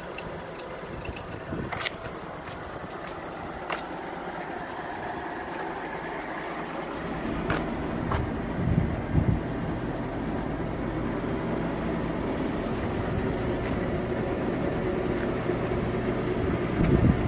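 Rolls-Royce 20 HP straight-six engine idling steadily. There are a few sharp clicks, and low thumps about halfway through and again near the end.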